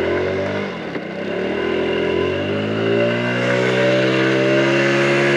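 A 2022 Mondial Turismo 80cc motorcycle's engine pulling away. The revs climb, fall back about a second in, then climb again and settle to a steady cruise.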